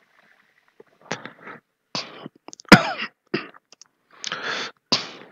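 Computer keyboard typing: a run of irregular keystrokes, with one sharper, louder clack a little under three seconds in.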